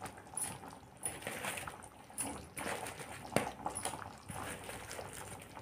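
Boiling gravy in a metal kadhai, with irregular wet bubbling and soft splashes as fried bread manchurian balls are added with a spatula. A sharp metal click comes about three and a half seconds in.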